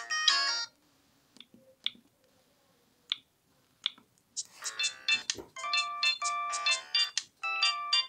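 A polyphonic Alcatel ringtone melody plays from a Sagem my730C phone's speaker and ends just after the start. A few short key clicks follow as the menu is scrolled. About four and a half seconds in, another Alcatel ringtone melody starts playing from the phone.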